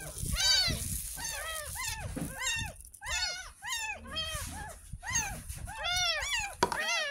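Ten-day-old kittens mewing over and over, about two high cries a second, each rising and falling in pitch and sometimes overlapping, as they are scrubbed wet with a toothbrush during their first bath.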